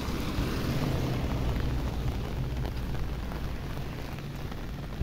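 Heavy rain hissing under a long, low rumble of thunder that swells just after the start and slowly eases off over the following seconds.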